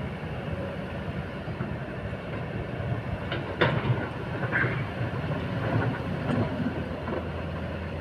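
Hydraulic excavators' diesel engines running steadily under load at close range, with a few sharp clanks of rock about three and a half seconds in as stones are moved by a bucket.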